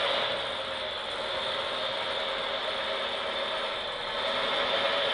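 The ScaleART MAN TGS 8x8 RC dump truck reversing under radio control: a steady mechanical whir from its electric drive motor and gearboxes, dipping slightly about a second in and rising again near the end.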